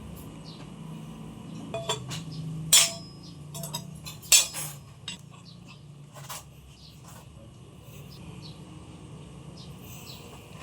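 Scattered metallic clinks and knocks of tools and parts being handled during scooter wheel bearing work, the loudest two about three and four and a half seconds in.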